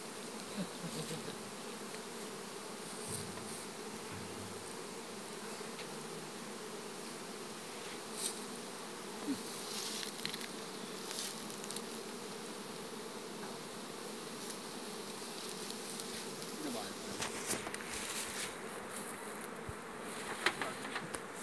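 Honeybees buzzing around opened hive boxes, a steady dense hum, with a few short knocks and clicks over it.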